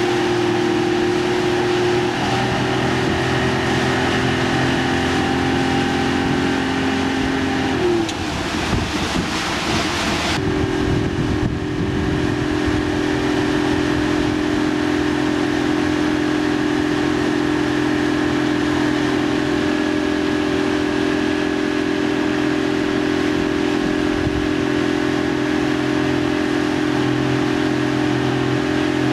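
Motorboat engine running steadily at towing speed, over the rush of water and wind. About eight seconds in, the pitch drops and the sound turns rough for about two seconds, then the engine runs steadily again.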